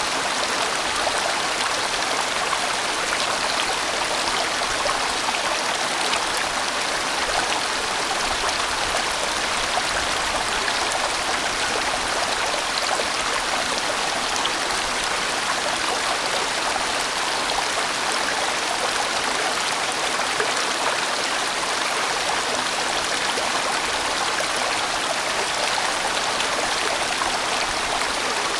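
A large, winding mountain stream rushing over rocks, with a steady, even flow of water.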